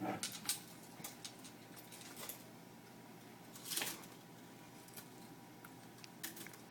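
Faint, scattered light clicks and taps of small objects being handled, with a short breathy rustle about four seconds in.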